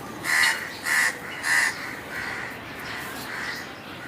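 A crow cawing three times in quick succession, about half a second apart, each caw short and harsh.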